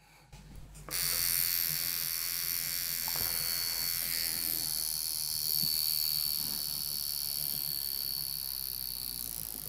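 Vulcain Cricket mechanical alarm wristwatch ringing: its alarm starts abruptly about a second in as a steady, shrill, high-pitched buzz that keeps going without a break.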